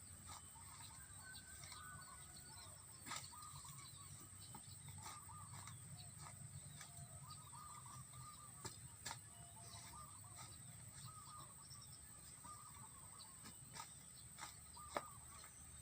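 Faint rural ambience: scattered short bird calls over a steady high-pitched hum, with a few sharp clicks, the loudest near the end.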